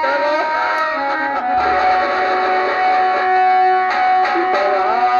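Live instrumental music from a nautanki stage band: a sustained, amplified melody with sliding notes.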